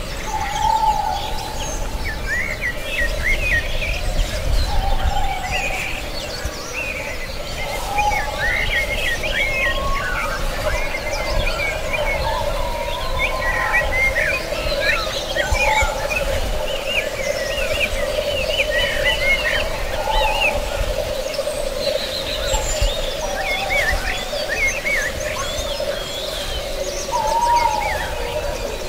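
A chorus of songbirds chirping and singing, with many short quick calls overlapping. Underneath runs a steady drone, and a short lower call repeats every few seconds.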